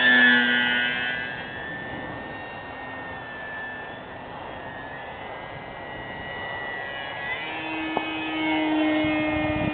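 The Hacker A20-26M brushless outrunner motor and propeller of an RC aerobatic airplane whining in flight. It is loudest as the plane passes close at the start, falls in pitch as it pulls away, then grows louder again near the end. A short sharp click about eight seconds in.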